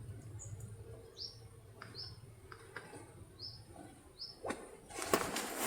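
A small bird chirping: about five short, high notes roughly a second apart. A few clicks and rustles near the end.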